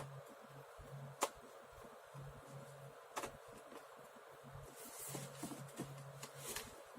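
Small handling noises from taking a laptop apart: a sharp click about a second in, another about three seconds in, then a run of faint ticks and scrapes, over a faint low hum.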